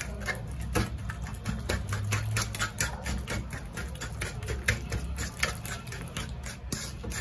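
Overripe plantains being mashed by hand in a stainless steel bowl: quick, irregular clicks and taps against the metal, several a second, with soft squelching of the pulp.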